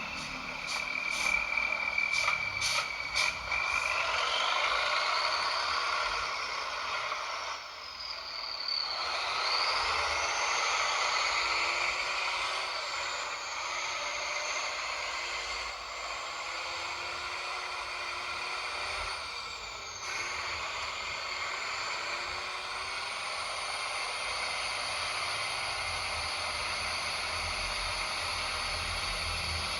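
Electric motor and gearbox of an RC toy truck whining, the pitch rising and falling several times as it speeds up and slows down, with a few sharp clicks in the first few seconds.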